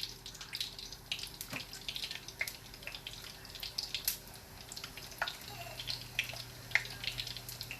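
Corn tortillas softening in hot oil in a small pan: the oil sizzles with scattered, irregular crackling pops.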